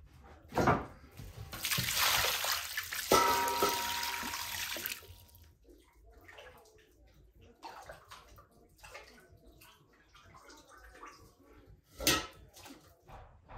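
Water splashing and pouring in an enamel basin as raw liver is washed by hand, loudest for a few seconds near the start, then quieter sloshing and handling. Near the end comes a single sharp knock, a wooden cutting board set down on the table.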